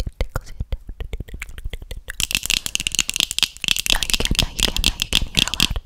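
Long fingernails scratching and tapping on a microphone's metal grille: scattered quick clicks at first, turning about two seconds in into dense, bright crackling scratches.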